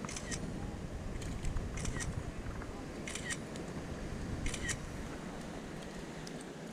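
Smartphone camera shutter sound going off about five times in the first five seconds as photos are taken, each a quick double click.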